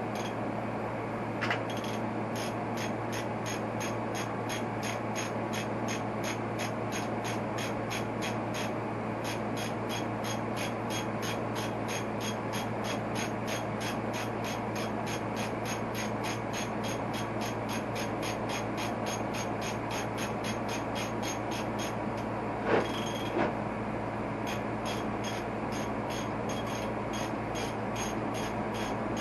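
Hand ratchet wrench clicking steadily, about three to four clicks a second, as a bolt on the motorcycle fork is worked out; two knocks about three-quarters of the way through. A steady low hum runs underneath.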